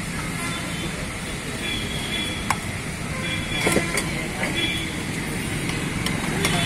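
Busy street ambience around a food stall: a steady traffic rumble and background chatter, with a few sharp clinks of a ladle against steel pans, about two and a half and four seconds in.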